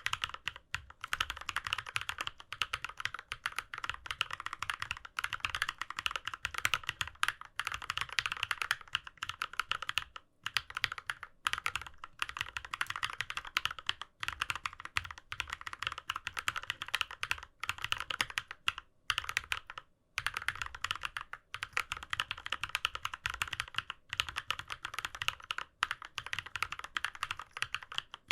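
Keychron K6 mechanical keyboard being typed on, a fast, continuous clatter of keystrokes with a couple of brief pauses.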